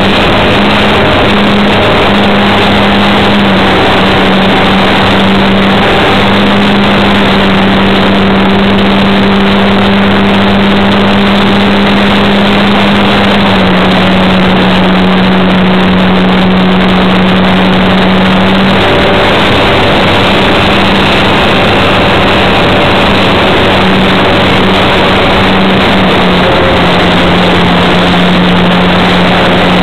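RC Cessna model airplane's motor and propeller, heard through the plane's onboard camera microphone: a steady drone over a heavy rushing noise, its pitch stepping slightly lower a couple of times.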